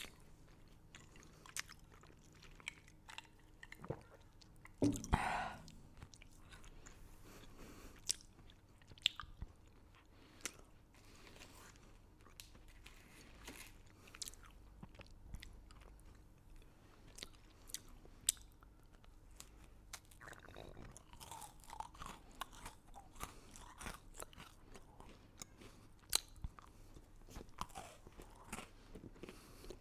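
A person chewing and crunching candy close to the microphone: many short, sharp crunches scattered throughout, with a louder bite about five seconds in.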